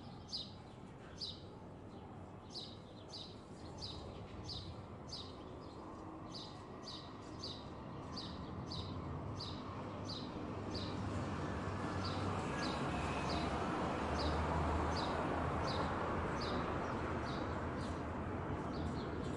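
Boeing 747 freighter passing low on approach with gear down: its jet rumble swells in from about eight seconds in, is loudest around fifteen seconds and eases a little near the end. A bird repeats a short chirp about twice a second.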